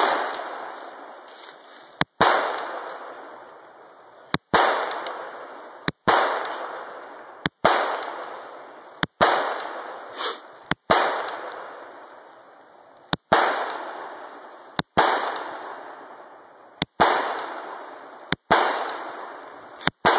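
Glock 41 Gen4 .45 ACP pistol, loaded with Winchester 230-grain full metal jacket rounds, firing single shots at a slow, steady pace: about a dozen in all, one every one and a half to two and a half seconds. Each shot is followed by a long echo that rolls away through the woods.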